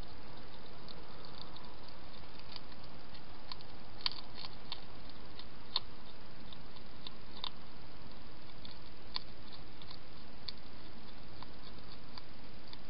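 Wild hedgehog with its head in a dish, making irregular small sharp clicks with its mouth as it eats or drinks, a few louder clicks every second or two, over a steady hiss.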